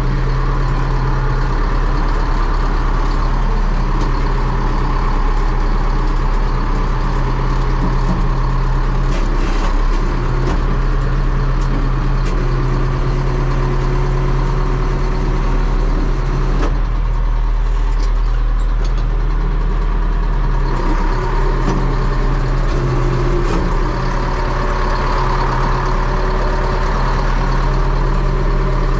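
DT-75 crawler tractor's diesel engine running steadily and loudly while the tractor pushes soil with its dozer blade, heard from inside the cab.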